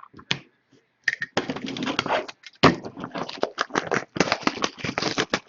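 Baseball cards and their packaging being handled: a rapid, crackling rustle that starts about a second in.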